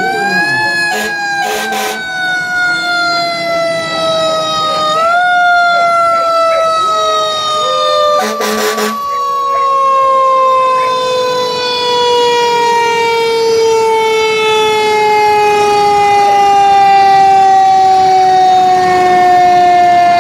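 Rescue squad emergency vehicle's siren wailing. Its pitch climbs briefly about a second in and again about five seconds in, then falls slowly and steadily. There are two short bursts of noise about one and a half and eight and a half seconds in.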